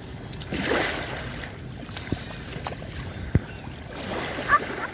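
Sea water splashing and washing around, louder for a moment about a second in, with a few sharp knocks and a brief high-pitched call near the end.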